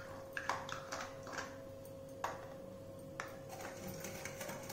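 Light clinks and taps of a metal wire whisk and utensils against a glass mixing bowl as butter is added: a handful of separate sharp knocks, irregularly spaced, over a faint steady hum.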